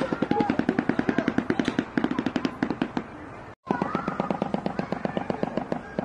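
Shoebill clattering its bill, slapping the upper and lower mandibles together in rapid hollow claps at about ten a second, like a machine gun. It comes in two long runs with a brief break a little past halfway.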